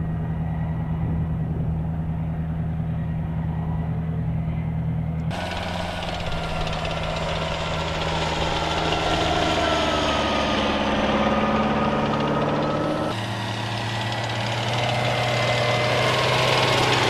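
Diesel engine of a tracked M109 Paladin self-propelled howitzer running steadily. The sound changes abruptly twice, about 5 and 13 seconds in, and in the middle stretch the engine pitch shifts up and down.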